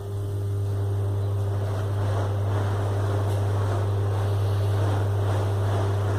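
Cross-flow blower wheel from a split air conditioner's indoor unit spinning on a balancing jig, driven by a small electric motor: a steady motor hum with the rush of air from the wheel, building up over the first second or two. The wheel runs smoothly, its counterweights having balanced it.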